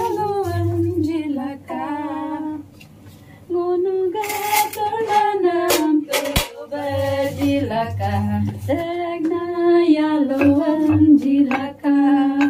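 A woman singing a slow song unaccompanied, with long held, wavering notes and short breaths between phrases. A few sharp clicks and knocks from things being handled come about halfway through.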